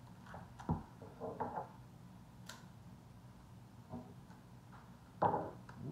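Handling a comic book and its packaging on a tabletop: a few light clicks and rustles, with a sharper knock under a second in and a louder rustle a little after five seconds in.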